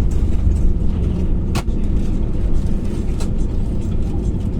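Cabin rumble inside an Airbus A321 as it taxis, with its CFM56 engines near idle and the wheels rolling on the taxiway. There is a sharp knock about one and a half seconds in, and fainter ticks a little later.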